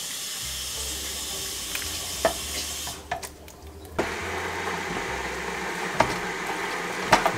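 Kidney beans in chilli sauce spooned from a tin into a slow cooker, then the thick chilli stirred with a wooden spoon, with a few light knocks of the spoon.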